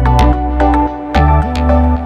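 Electronic background music: sharp struck notes over sustained chords and a bass line that changes about every half second.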